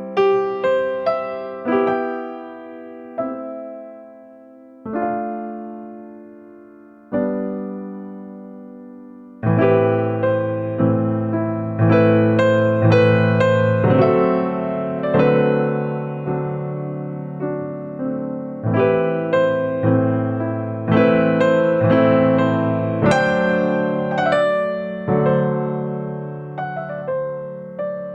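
Background music on electric piano: single notes and chords that strike and fade, sparse at first, then fuller with a low bass line from about a third of the way in.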